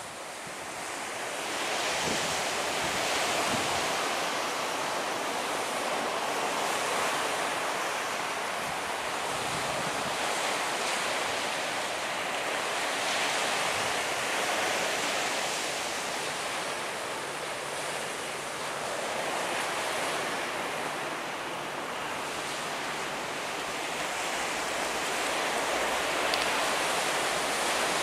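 Surf breaking on a beach, swelling and easing every few seconds, with wind gusting on the microphone.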